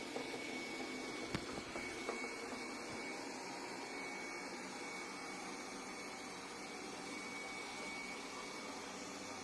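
Dibea robot vacuum cleaner running: a steady whirring hiss with a thin high whine over it, and a few light knocks in the first couple of seconds.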